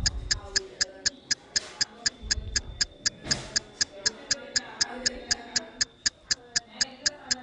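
Steady clock-like ticking, about four ticks a second, with faint music under it.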